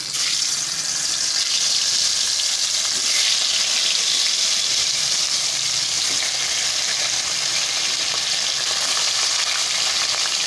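Tilapia fish frying in hot oil in a kadai: a dense, steady sizzle that starts suddenly as the fish goes into the oil.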